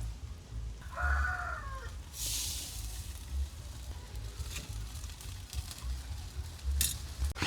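A rooster crowing once, about a second in, a short crow that falls in pitch at its end, followed by a brief hiss and a few light knocks.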